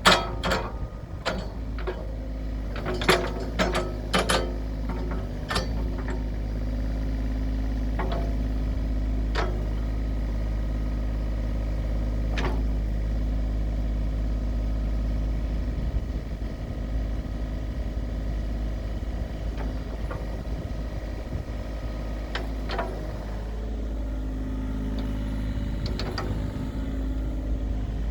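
John Deere 35G compact excavator's diesel engine running steadily, with a quick run of sharp knocks in the first few seconds and a few single knocks later.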